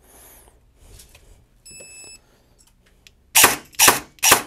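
A battery connector plugged in with a soft click, a short electronic beep about two seconds in, then the Cyma SVD AEG's bare gearbox dry-firing three sharp shots about half a second apart near the end, the piston slamming forward each cycle. The gears run smoothly and quietly after their anti-reversal latch was put right.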